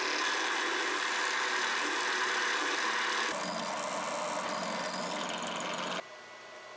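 Electric drill running steadily while a small drill bit cuts a 2.5 mm hole into a steel ball-stud bolt held in a vise. The sound shifts a little past three seconds in as the bit works into the metal, then cuts off suddenly about six seconds in.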